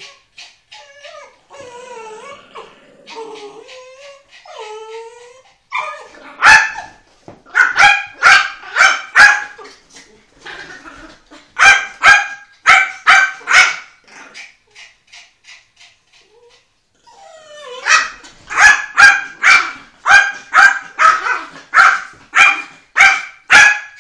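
A beagle puppy and a chihuahua–Jack Russell cross barking at play: runs of sharp, high barks, several a second, coming in three bursts, with wavering whines in the first few seconds.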